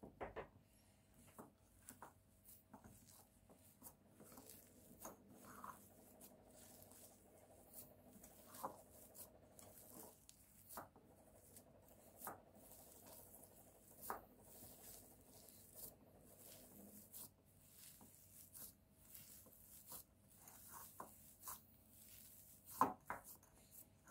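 Faint, irregular squishing and rubbing of a hand kneading a crumbly dough of mashed potato and flour in a ceramic bowl, with light taps of fingers against the bowl and one louder tap near the end.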